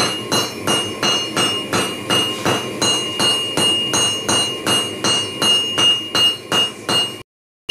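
Hand hammer striking a red-hot steel rod on a railroad-track anvil in a steady rhythm of about three blows a second, each blow ringing with a high metallic tone from the rail. The blows cut off abruptly near the end.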